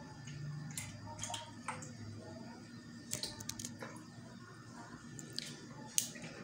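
Faint scattered drips and small clicks of water around a small concrete fish pond, over a low steady hum.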